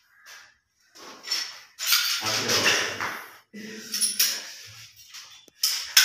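Hard plastic pipe fittings and tools clattering and scraping as they are handled, in uneven bursts, with a short low murmur of a voice about two seconds in.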